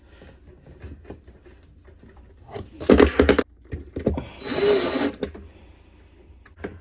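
Hand-handling noises as anti-seize is worked onto a washing machine gear part and the part is turned: faint clicks, with two louder rubbing, scraping sounds about three seconds in and between four and five seconds in.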